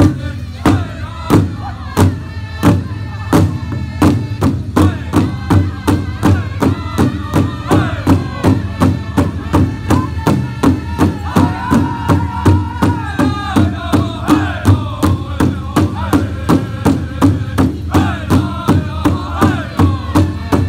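Powwow drum group: several singers beating a large shared drum with sticks and singing together. A few spaced strikes at first, then a steady beat of about two to three strikes a second under the group's chant.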